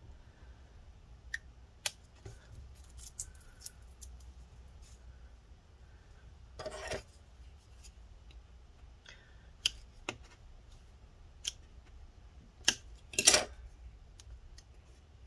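Scattered light clicks and ticks, with a short scrape about seven seconds in and a louder one near the end, as battery adhesive strips are worked loose and peeled from a MacBook Pro's aluminium case.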